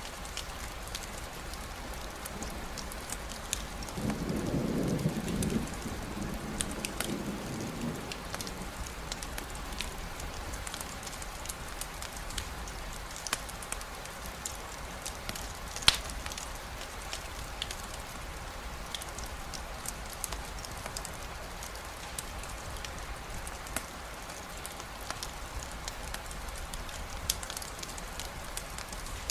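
Steady rain falling, with scattered sharp crackles and pops from a campfire and one loud pop about halfway through. A low rumble of thunder comes about four seconds in and fades by about eight seconds.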